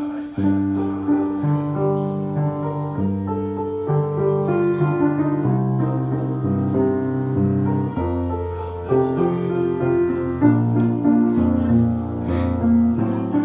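Piano music: slow held chords, one change about every second, starting abruptly.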